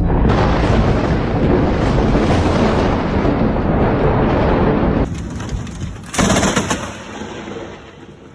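Thunder: a crack of close lightning rolling into a long, loud rumble, then a second sharp clap about six seconds in that fades away.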